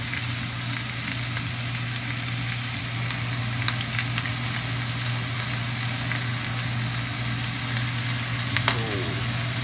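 Beef steaks sizzling steadily in a frying pan, with scattered small pops and crackles. A steady low hum runs underneath.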